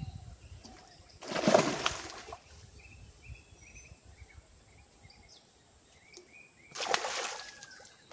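A hooked fish thrashing at the surface of a pond on the line, with two splashes: a louder one about a second in and another near the end. Faint bird chirps between them.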